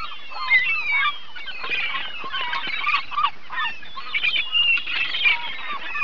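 A flock of gulls calling, many cries overlapping at once with no pause.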